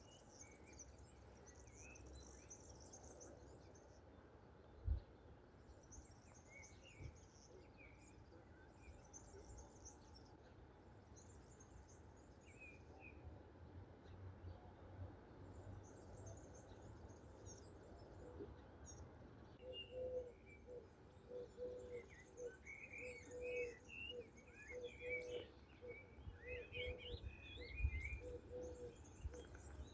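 Faint songbirds chirping and twittering, joined about two-thirds of the way through by a dove's low cooing call repeated over and over. Two brief low bumps, about five seconds in and near the end.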